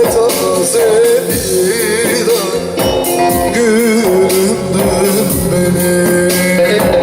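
Turkish folk music of the Teke region: an ornamented, wavering melody over a steady percussion beat.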